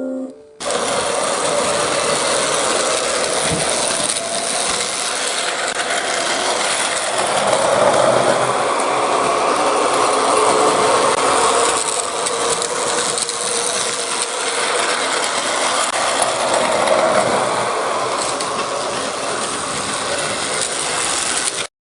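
Battery-powered Plarail toy train running on plastic track: a steady whirring and rattling of its small motor, gears and wheels. It starts suddenly, swells a little twice and stops abruptly near the end.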